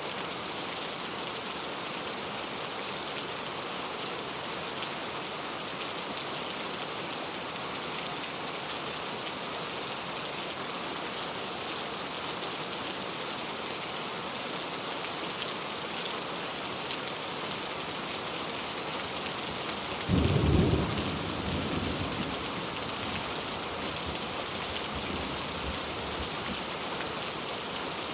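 Steady rain falling, with a sudden loud clap of thunder about twenty seconds in that rumbles away over the next few seconds.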